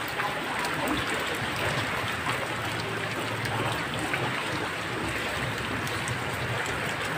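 Steady rain falling onto shallow floodwater flowing through a street: an even hiss with fine scattered drop taps.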